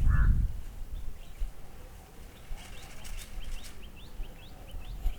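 Outdoor birdsong: a crow caws once at the start. From about halfway through, a small bird gives a quick run of short rising chirps over a low rumble.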